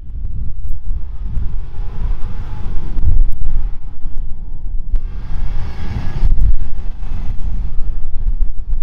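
Four-wheel-drive utes driving hard up a steep soft-sand dune: engines working under load and tyres churning and spraying sand, under heavy low wind rumble on the microphone. It starts suddenly and swells about five to six seconds in.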